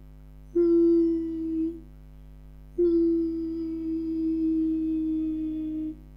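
Beatbox 'siren': a high hum buzzed between the upper front teeth and the lower lip, imitating a police siren. It comes as two held notes of fairly steady pitch, a short one of about a second and then a longer one of about three seconds.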